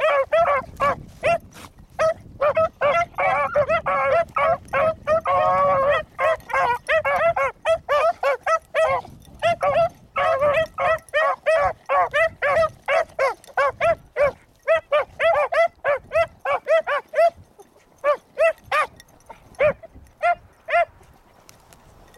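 Two young beagles baying as they run a rabbit track: a fast run of short, yelping chop barks, with one longer drawn-out bawl about five seconds in. Near the end the barking thins to single yelps and then stops.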